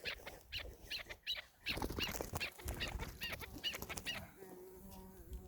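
Chukar partridges calling in a rapid run of short clucking notes, with some wing flapping. From about four seconds in a steady low tone joins them.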